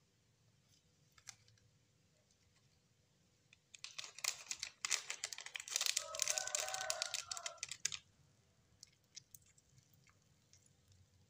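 Plastic packaging crinkling and tearing as a packet is cut open with a knife, a dense run of crackles lasting about four seconds in the middle, with a few light ticks before and after.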